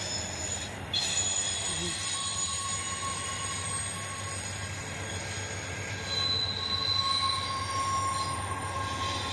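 Intermodal freight train of double-stack container cars rolling past: a steady rumble of steel wheels on rail. A thin squeal from the wheels runs through it, with a higher whine joining about six seconds in.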